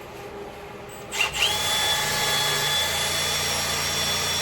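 Electric drill starting up about a second in with a quick rising whine, then running steadily, spinning a fine hone to smooth the bore of an old brake master cylinder.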